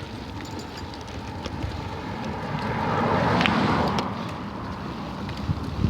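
A vehicle passing by: a rushing sound builds, peaks about three and a half seconds in, then fades, over a steady background of wind on the microphone.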